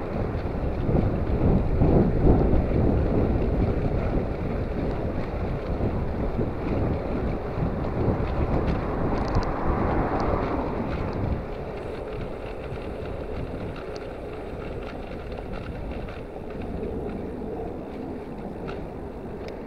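Wind rushing and buffeting over the microphone of a camera riding on a moving bicycle, a dense low rumble that eases and gets quieter about halfway through.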